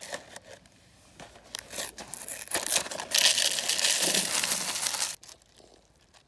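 A single-serve Frosted Flakes box and its inner plastic bag crinkling and tearing as they are opened, then the corn flakes poured into a paper bowl in a steady rattling rush for about two seconds that stops abruptly a second before the end.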